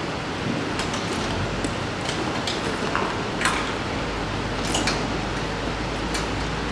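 Tarp being pulled down and a tie-down strap hooked onto a flatbed trailer's side rail: scattered faint clicks and rustles over a steady background hiss.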